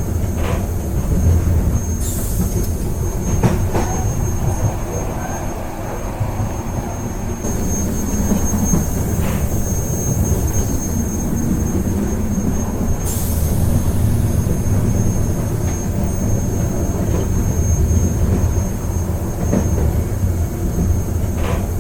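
Moving train heard on board: a steady low rumble with a thin high whine, broken by occasional short clicks and knocks and a couple of brief bursts of hiss.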